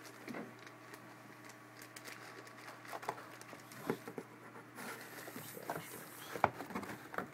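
Quiet handling noises: small clicks and taps of SFP transceiver modules being picked up and set down on foam packing, with a brief rustle about five seconds in, over a faint steady hum.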